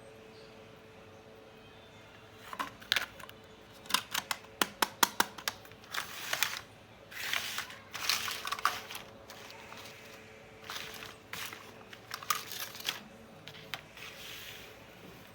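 Quick clusters of small, sharp plastic clicks and short crinkling rustles from a toy makeup set and its packaging being handled. The clicks come in a fast run a few seconds in, with rustles between them, and the sounds thin out near the end.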